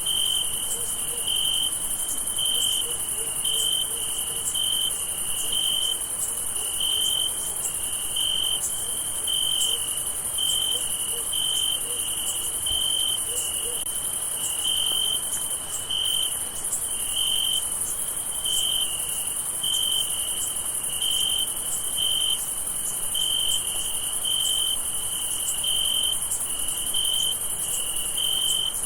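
Night chorus of crickets: a steady high-pitched shrill from many insects, with a nearer cricket chirping in short, evenly spaced pulses about once a second.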